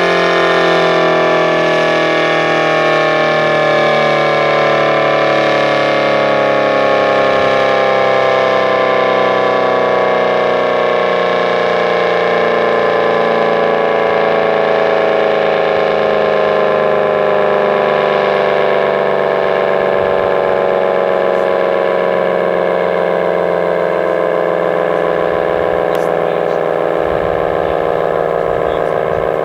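ACA Banshee 115 civil-defense siren winding down, its loud wail sliding slowly and steadily lower in pitch as the rotor coasts down.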